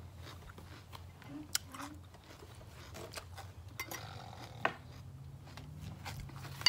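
Metal fork and spoon clinking and scraping against a serving bowl as raw-salmon salad is stirred and scooped. There are a few sharp clinks, the loudest right at the end.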